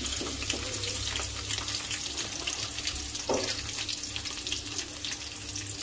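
Sliced onions sizzling and crackling in hot oil, with a dried red chilli and cumin seeds, just after being dropped into the pan, with a faint steady hum underneath.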